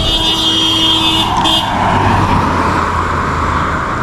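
A car driving, with steady engine rumble and road noise. For the first second and a half, a held high tone sounds over it, then stops.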